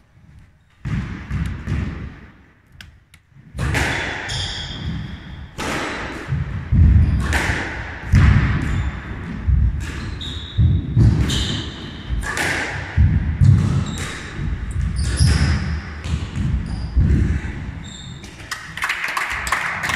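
Squash rally: the ball is struck by rackets and hits the court walls about once a second, with thudding footsteps, echoing in the court. The hitting is sparse at first and becomes steady about four seconds in.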